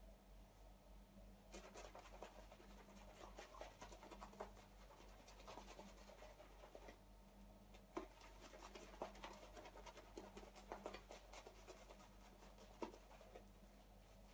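Faint scrubbing with many small crackles from a 30mm synthetic tuxedo shaving brush working lather over the face. It starts about a second and a half in and has a short break around the middle.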